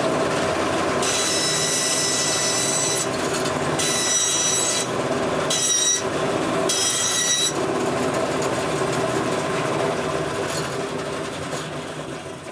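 Bandsaw running on its newly repaired wheel tyre, cutting wood in four short passes that each add a high ringing whine over the steady hum of the machine. The sound tails off near the end as the saw runs down. It runs smoothly, and the owner says it even sounds nicer.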